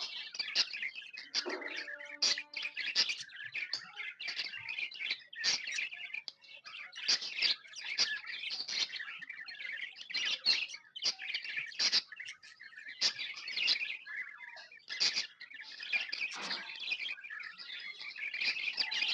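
Several budgerigars chirping and chattering together, a continuous stream of quick high chirps overlapping one another.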